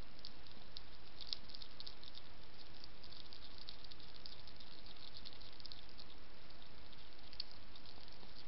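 European hedgehog chewing dry kitten biscuits: quick, irregular crunches over a steady hiss.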